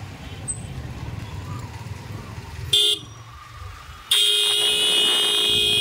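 Vehicle horn honking in traffic: a short toot about three seconds in, then a long steady honk of nearly two seconds near the end. Underneath, the low rumble of the motorcycle being ridden.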